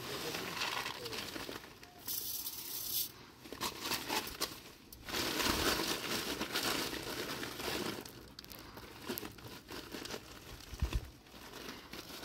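Irregular rustling and crinkling of handled material, such as plastic sacking and cloth. About two seconds in there is a brief hiss lasting about a second, and near the end a single low thump.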